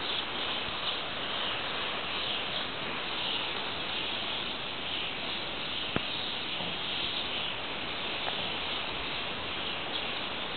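A steady high-pitched hiss that swells and fades slightly, with a single faint click about six seconds in.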